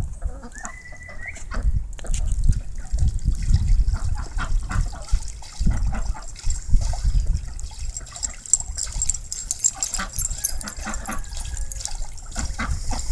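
Ducks bathing, splashing and flicking water in many short splashes, with a couple of short calls, over a low rumble of wind on the microphone.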